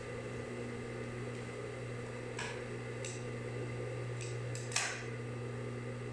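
Industrial sewing machine's electric motor humming steadily while switched on, with a few short sharp clicks as the fabric and machine are handled; no stitching run is heard.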